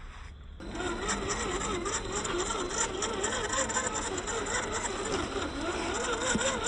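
Electric motor and gearbox of an RC scale crawler whining, starting about half a second in, its pitch wavering up and down as the throttle changes.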